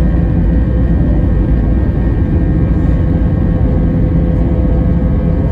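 Jet airliner heard from inside the cabin on its takeoff roll: the engines at takeoff power give a loud, steady rumble with a steady whine on top.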